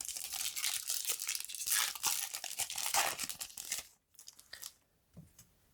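Foil booster-pack wrapper being torn open and crinkled for about four seconds, then a few faint light ticks.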